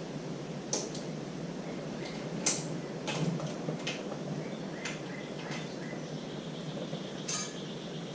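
Scattered light clicks and taps, about ten over several seconds, from hand tools and small engine parts being handled during disassembly, over a steady low background hum.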